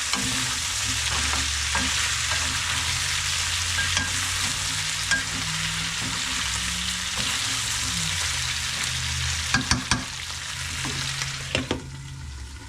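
Chicken pieces frying in oil in a pan with a steady sizzle, stirred, with a few sharp knocks of the spatula on the pan about ten seconds in. The sizzle falls away sharply shortly before the end. Underneath runs the low, steady hum of a lawn mower.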